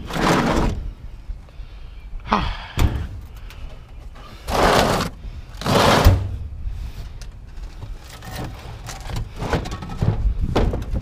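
Heavy scrap items being shoved and dragged into place as they are loaded: several short scraping slides and thunks, the loudest about halfway through, then lighter knocks.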